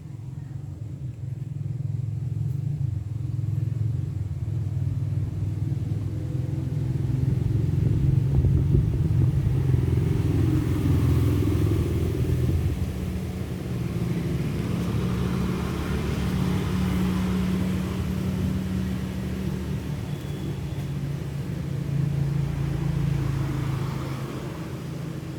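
A motor vehicle engine running with a steady low hum that swells towards the middle and eases off near the end.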